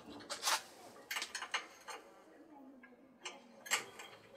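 A series of light clicks and clinks at irregular intervals, the sharpest about half a second in and again near the end.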